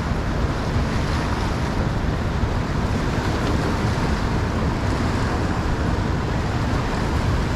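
Steady wind noise rumbling on the microphone, mixed with the rush of fast-flowing river water.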